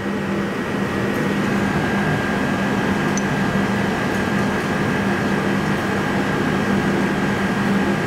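Steady mechanical hum and rushing noise, even throughout, with a low hum and a faint thin high whine running under it.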